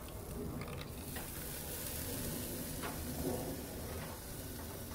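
Croaker fish sizzling on a gas grill while a wire grill basket is flipped over and set back down on the metal grates, with a couple of light metallic clinks.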